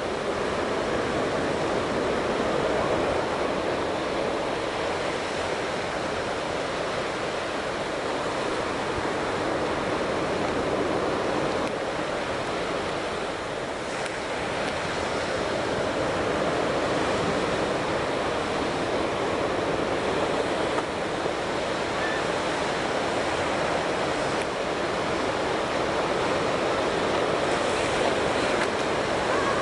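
Steady wash of surf breaking on a sandy beach, mixed with wind, an even noise with no single waves standing out.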